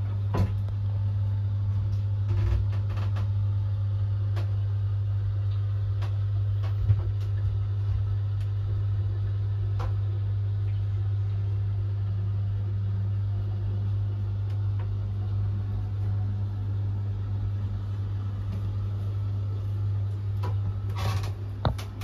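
LG Twin Mini washing machine running with a steady low hum while it drains, pumping its water out through the drain hose into the boat's bilge. A few light knocks are heard over the hum.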